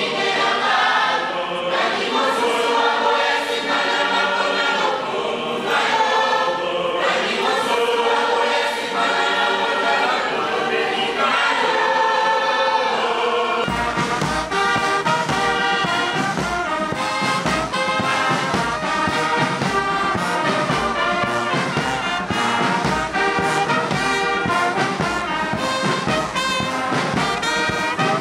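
A choir singing, then about halfway through it switches abruptly to a marching brass band: trumpets and other brass playing over steadily beaten snare drums.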